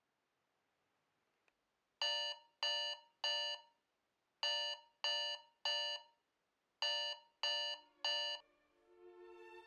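Alarm clock going off: three bursts of three sharp, pitched beeps, each beep fading quickly. Soft violin music comes in near the end.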